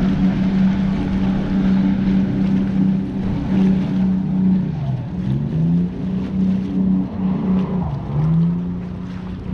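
Motorboat engine running steadily under way, with wind and water rushing. The engine note dips and comes back up twice, about five and eight seconds in.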